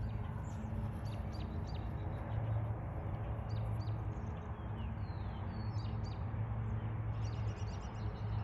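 Small birds chirping in short, scattered calls, some sweeping quickly down in pitch, over a steady low hum.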